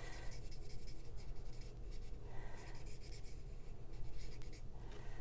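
Stampin' Blends alcohol marker tip rubbing over cardstock in many short, repeated strokes, a soft scratchy sound.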